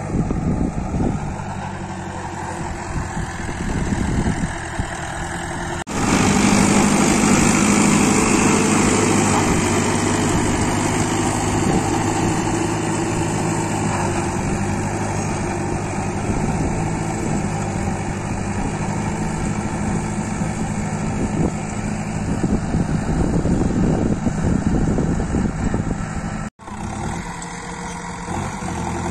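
Sonalika tractor's diesel engine running steadily under load as it pulls a tine cultivator through the soil. The sound changes abruptly about six seconds in, getting louder and fuller, and breaks off sharply again near the end.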